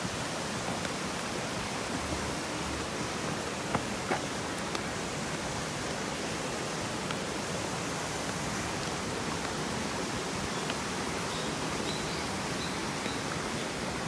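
Steady rush of running water. There are a couple of faint clicks about four seconds in and a few faint high chirps near the end.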